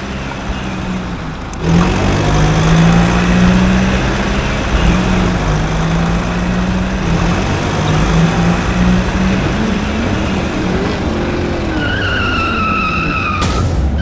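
Engine sound effect dubbed over toy vehicles: a steady, loud motor drone with a gritty noise over it, briefly dropping out about a second and a half in. Near the end a high screech like a skid comes in for a second or so.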